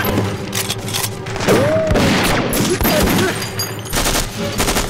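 Gunfight: repeated shots from submachine guns and rifles, with a rapid burst of automatic fire near the end.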